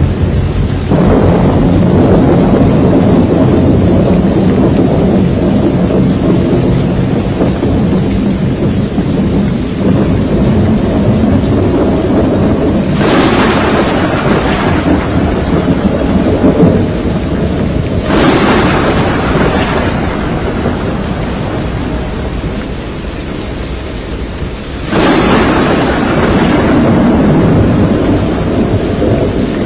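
Thunderstorm: a steady heavy roar broken by four sudden thunder cracks, each dying away into a rumble over several seconds.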